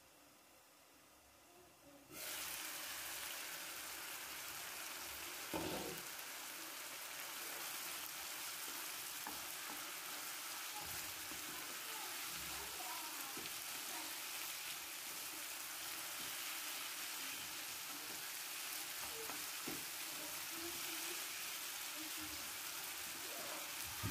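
Chicken breast strips sizzling in oil in a non-stick frying pan while a wooden spatula stirs them. The sizzle starts suddenly about two seconds in, with a knock a few seconds later and small scrapes and ticks from the stirring.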